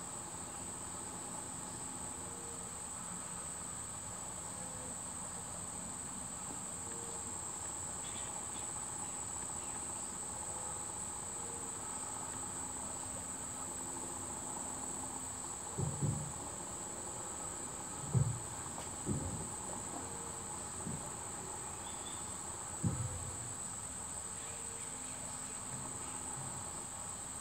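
A steady, high-pitched shrill chorus of rainforest insects. A few dull low thumps come about two-thirds of the way through.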